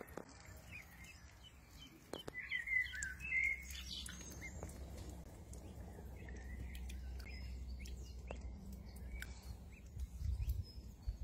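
Ducklings peeping, a cluster of quick high chirps about two seconds in and scattered peeps after, over a low steady rumble.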